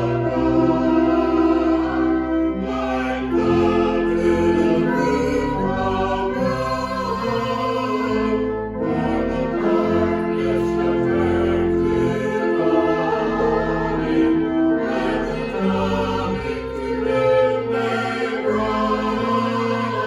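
Choral music: a choir singing sustained chords in a sacred piece.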